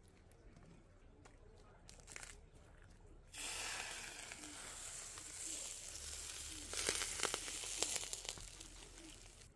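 Liquid poured from a small pan into a hot cooking pot of rice, hitting the hot metal and sizzling: a sudden hiss starts about a third of the way in and carries on for several seconds, with crackling and popping spatters near the end.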